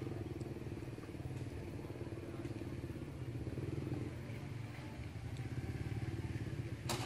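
A small engine running steadily at idle, a low even drone, with one sharp click near the end.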